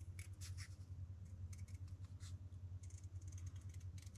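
Scissors cutting a sticker sheet: a run of short, crisp snips at an uneven pace, over a steady low hum.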